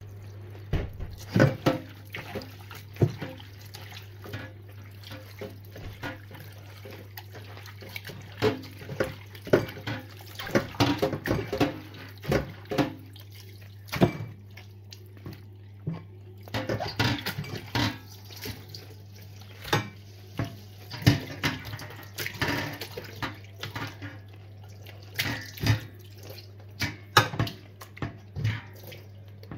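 Tap water running and splashing in a stainless steel sink as pieces of lamb tripe are rinsed in a metal colander and pot, with frequent sharp clanks and knocks of the pot and colander being handled. A steady low hum runs underneath.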